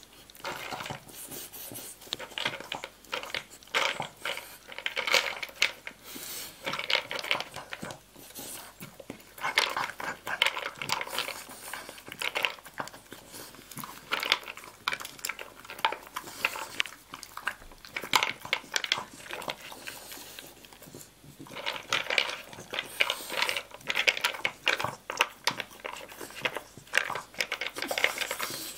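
A dog eating dry food from a plastic slow-feeder bowl: rapid, irregular clicking and rattling as it noses the kibble out from between the bowl's raised bumps, the pieces knocking against the plastic.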